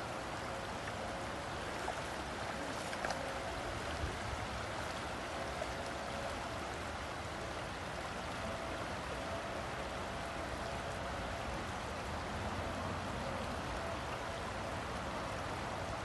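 Shallow river flowing over a rocky riffle: a steady rush of water, with a few faint ticks about two to four seconds in.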